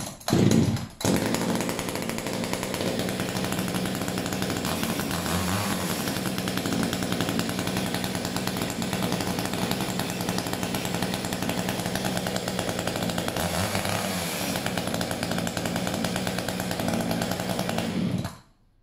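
Echo CS-3000 two-stroke top-handle chainsaw, pull-started with the choke pushed back in: it catches about a second in and runs steadily, then cuts off suddenly near the end when switched off. This is its first run after about two years of storage, on fresh fuel.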